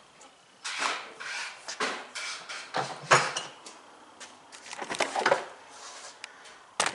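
Irregular plastic knocks and rattles as the Bauer 6.5 shop vac is set on the ground and handled, in scattered clusters with short gaps, bunched again about five seconds in.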